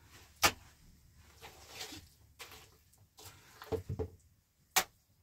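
Two sharp knocks, one about half a second in and one near the end, with softer scraping and rustling handling noises between them.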